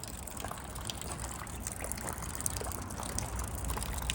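Rainwater trickling and dripping, with many small scattered drips over a steady wash of water.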